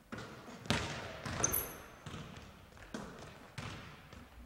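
Basketballs bouncing on a gym floor: about five sharp, irregularly spaced bounces, with a brief high squeak about a second and a half in.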